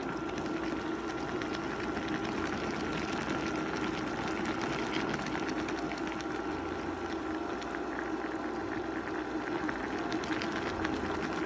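A pot of liquid at a boil: a dense, steady bubbling and popping over a low hum.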